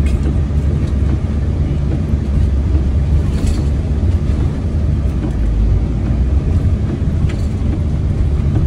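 Steady low rumble of a vehicle's engine and tyres, heard from inside the cabin while it drives slowly along a wet, muddy dirt track in the rain, with two faint ticks about four seconds apart.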